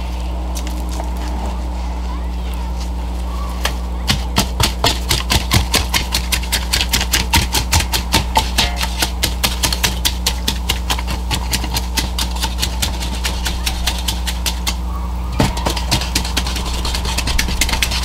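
Rapid repeated scraping strokes of a wooden tool working a wet vermiculite and mortar mix in a metal bucket, a few strokes a second. The strokes start about four seconds in and stop about fifteen seconds in, over a steady low hum.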